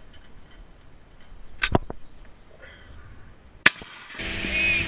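Shotgun shots at field targets: two reports almost together about a second and a half in, then one sharp crack near the end. Just after, a steady engine hum cuts in abruptly.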